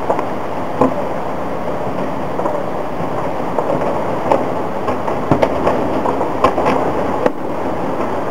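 Distant fireworks or firecrackers going off as scattered sharp pops at irregular intervals, over a steady rushing background noise.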